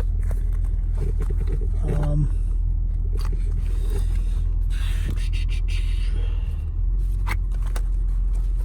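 A steady low rumble inside a car cabin, with the pages of the owner's manual rustling and small clicks and handling sounds.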